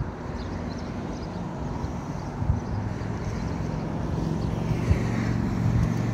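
A tram running, with a steady low motor hum that grows louder in the second half and a couple of short knocks.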